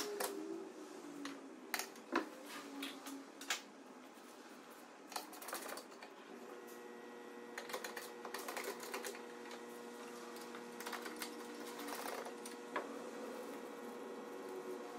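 Irregular clicks, knocks and rattles of plastic trim covers and fasteners being worked loose inside the boot of a BMW E90 to get at the tail lights. A faint steady hum comes in about six seconds in.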